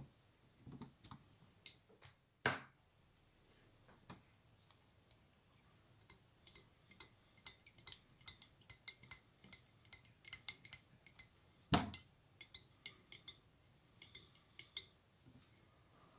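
Light clicking and clinking of fly-tying tools as a bobbin wraps thread around a hook held in a vise. The clicks come about two a second through the middle, some with a short metallic ring, with two sharper knocks, one early and one near the end.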